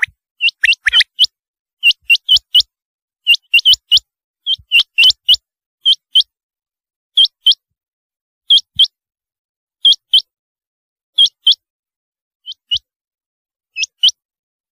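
Rain quail (black-breasted quail) calling: sharp, high, upswept notes given in quick pairs and triples. They come thickly for the first few seconds, then settle into a pair about every second and a half.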